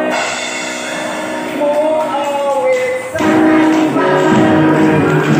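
Upbeat worship song: a short instrumental intro of sustained chords with a gliding melody line, then about three seconds in a group of men's voices comes in singing together over the accompaniment, and the music gets louder.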